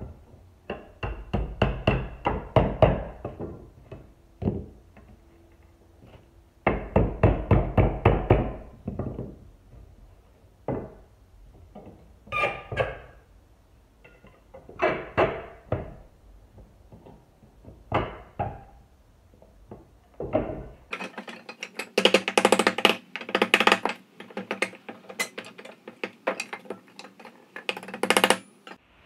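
Hammer driving nails into old wooden boards, in quick runs of blows with single strikes between them. From about two-thirds of the way in, the blows sound thinner, with the low end gone.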